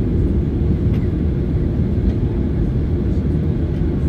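Cabin noise of a Boeing 737 taxiing onto the runway: the jet engines at low taxi thrust give a steady, even rumble with a faint constant hum over it.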